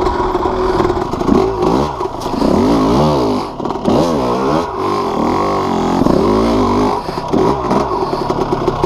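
Yamaha YZ250 two-stroke dirt bike engine, fitted with a BeRad Freight Train performance kit, revving up and down again and again as the throttle is opened and closed, about six or seven rises in pitch.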